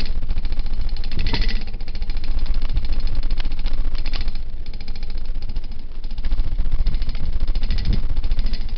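Harbor Breeze Armitage 42-inch ceiling fan running on high speed, heard up close: a steady, rapid pulsing from the blades with a strong low rumble of moving air on the microphone.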